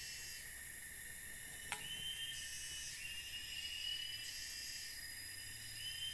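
Forest insects calling in a high-pitched chorus, a phrase repeating about every second and a half over a steady hiss. One sharp click a little under two seconds in.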